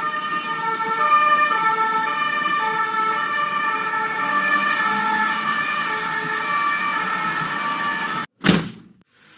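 Police siren sound effect, a steady wail stepping back and forth between two pitches, which cuts off abruptly about eight seconds in. A brief loud burst of noise follows.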